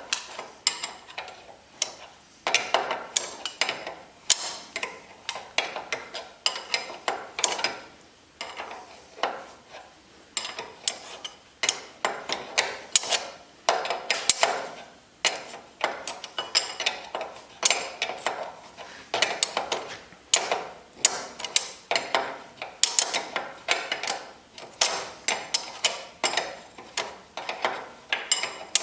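Steel brake parts and hand tools clinking and clicking in irregular runs of sharp metallic taps while a disc brake caliper and its bracket are fitted.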